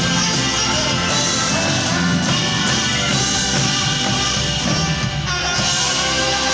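Live rock band playing an instrumental passage, electric guitar and band with drums and bass, at a steady loud level.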